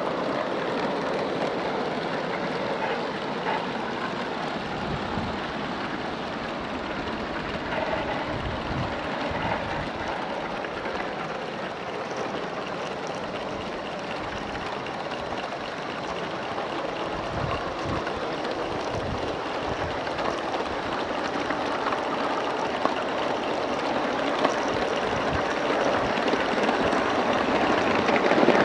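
Accucraft live-steam model of a Pennsylvania T1 locomotive running along garden railway track: a steady running noise that grows a little louder near the end as it comes close.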